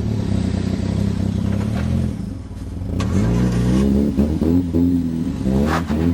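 Car engine running steadily, easing off about two and a half seconds in, then revving up and down over and over as a vehicle stuck in snow is driven and towed to get it free.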